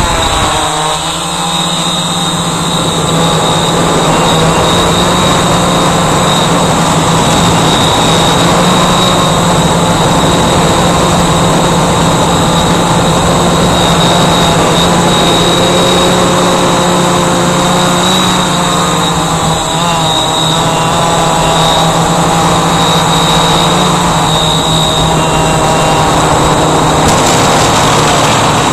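Walkera Voyager 3 quadcopter's four brushless motors and propellers, heard from the onboard camera: a steady motor whine and propeller hum that shifts in pitch near the start and then holds even.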